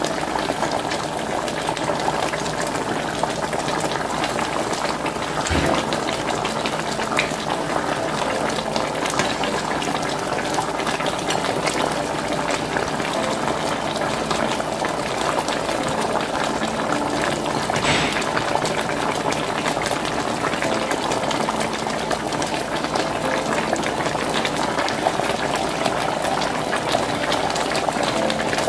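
Pork shoulder stew bubbling steadily in its liquid in a black enamel roasting pan. There is one brief knock about five and a half seconds in.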